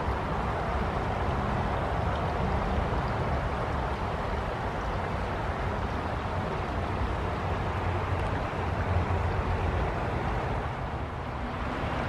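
A shallow forest river flowing over a rippled bed: a steady rushing of water with a deep rumble underneath.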